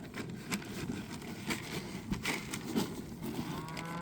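Scattered crunching and knocking noises, then a cow starts to moo near the end.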